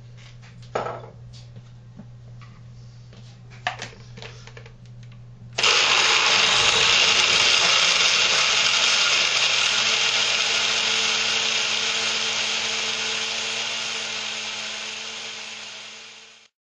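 Oster countertop blender crushing ice into a frozen cherry drink: after a couple of short knocks, it starts abruptly about five and a half seconds in and runs loud and steady for about eleven seconds, its level slowly dropping toward the end before it stops.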